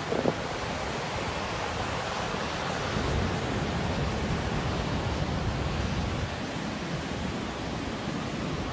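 Rough storm surf breaking and washing up a sandy beach: a steady rush of waves, with wind buffeting the microphone.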